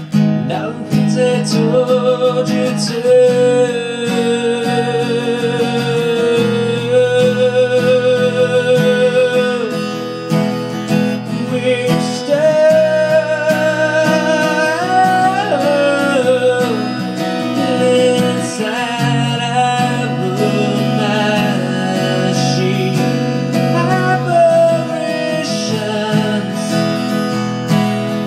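A man singing while strumming an acoustic guitar, the voice drawing out long wavering notes over steady chords.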